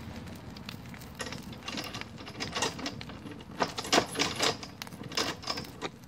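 Fire crackling among leafy plants and debris: a run of irregular sharp snaps and pops, thickest from about a second in until near the end.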